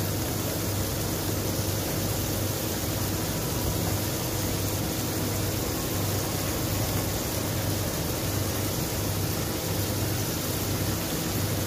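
Mixed seafood (squid, shrimp, mussels and white fish) sizzling and simmering in its own juices in a hot wok: a steady hiss with a low hum underneath.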